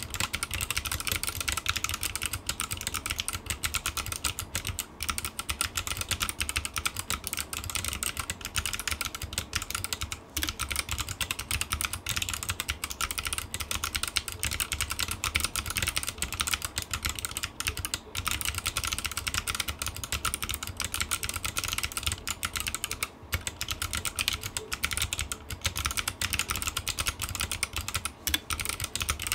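Fast, continuous typing on a Drop CTRL mechanical keyboard with clicky Kailh BOX White switches, a dense stream of sharp key clicks with a few brief pauses.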